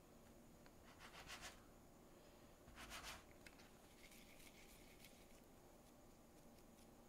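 A knife cuts through soft milk mochi dough against a wooden cutting board in two short scraping strokes about two seconds apart. Faint rubbing follows as hands pick up and roll the sticky pieces.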